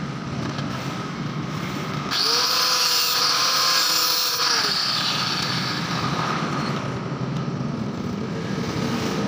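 Handheld angle grinder with a cutting disc switched on about two seconds in and cutting for a couple of seconds with a high whine and hiss. It is switched off and winds down, falling in pitch, about four and a half seconds in. Steady background noise runs before and after.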